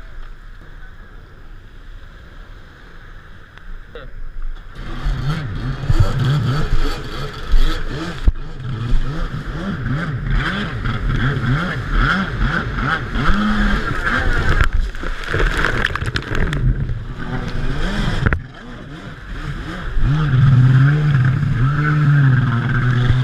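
Jet ski engine running low for the first few seconds, then revving up and down again and again as the ski skims over choppy water, with spray and wind on the microphone. It drops off briefly around eighteen seconds in, then runs hard and steady near the end.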